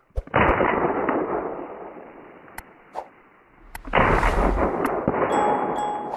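Two shotgun blasts about three and a half seconds apart, each followed by a long fading echo.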